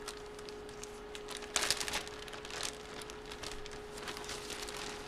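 Soft rustling and crinkling of trading cards and their packaging being handled, with a brief louder rustle about one and a half seconds in. A steady faint hum runs underneath.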